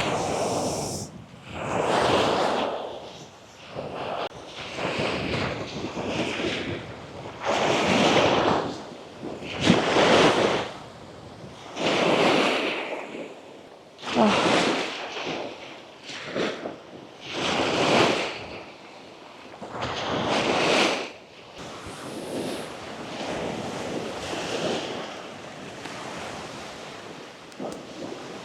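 Sea waves breaking and washing up the beach, the surf swelling and falling back again and again, every two seconds or so, with wind on the microphone.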